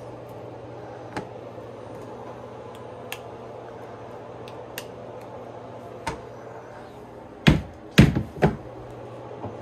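A few light clicks of a kitchen knife working an avocado on a cutting board, then three sharp knocks in quick succession near the end as the knife is struck against a plastic trash can, knocking the avocado pit off the blade. A steady low hum runs underneath.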